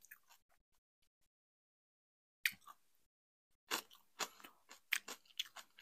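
Close-up eating sounds, chewing and small wet mouth clicks. A near-silent spell is followed, from about two and a half seconds in, by a string of short, sharp clicks and crunches.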